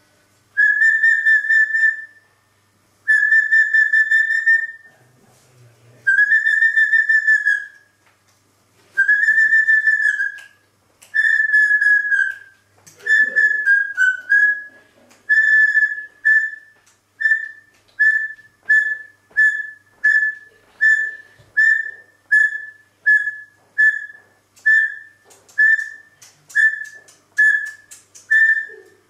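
Parrot whistling on one pitch: long held notes of about two seconds each with short gaps, then from about halfway a steady run of short clipped whistles, about one and a half a second.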